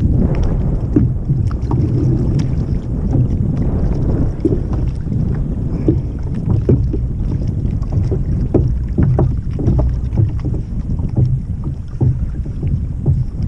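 Steady wind noise on the microphone, with small waves lapping against a kayak's hull in many short splashes and knocks.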